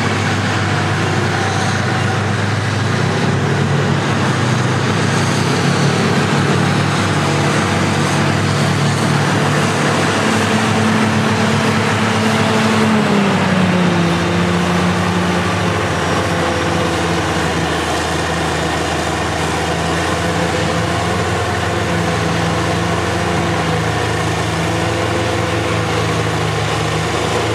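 Heavy diesel engines of classic Caterpillar earthmoving machines (motor scrapers and a grader) running steadily as they work. One engine note drops in pitch about halfway through.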